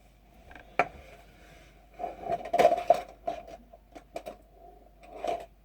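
Clicks, knocks and scrapes of small airsoft gearbox parts being handled and taken apart, with a denser clatter about two to three seconds in.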